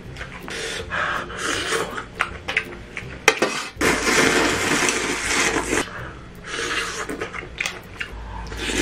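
Eating sounds: chopsticks and a spoon clicking against dishes, and a loud slurp of about two seconds, about four seconds in, as food is sucked up from a bowl held to the mouth.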